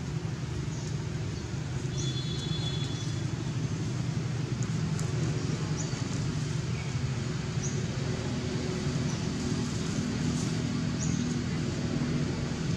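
A steady low motor drone, with short faint high chirps about once a second.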